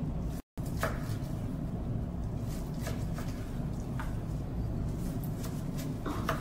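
Knife slicing through a grilled tomahawk steak, the blade giving a few faint clicks against the wooden cutting board, over a steady low hum.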